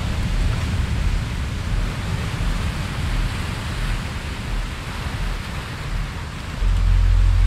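Steady rush of ocean surf from a relaxation soundtrack, with a deep low drone that gets clearly louder near the end.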